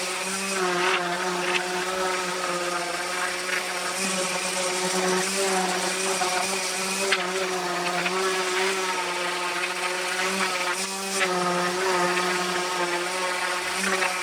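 Electric random orbit sander running steadily, its motor hum over the hiss of the pad scuffing across rough pallet-wood boards, with a few light knocks as it is moved over the wood.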